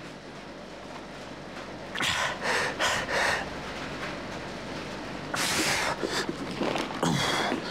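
A man breathing hard and forcefully under a heavy lift, straining at the limit of effort: a quick run of sharp exhalations about two to three seconds in, another hard breath near the middle, and a strained pitched grunt near the end.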